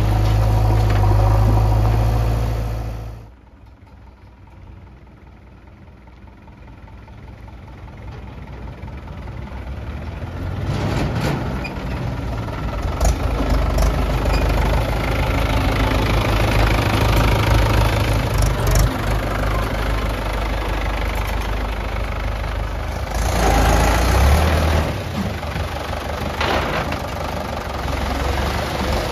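Diesel tractor engines running. First a Swaraj 735 FE idles for about three seconds, cut off abruptly. Then a Mahindra 415 DI's engine builds up steadily with a few sharp knocks, and revs louder for a couple of seconds about two-thirds through as it tips its hydraulic trolley.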